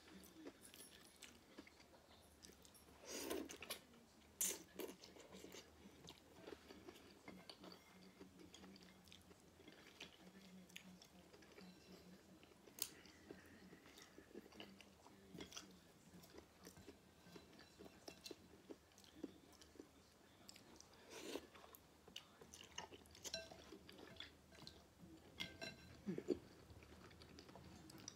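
Faint close-up chewing and biting of a person eating udon noodles and fried egg rolls, with many small mouth clicks and a few louder bites.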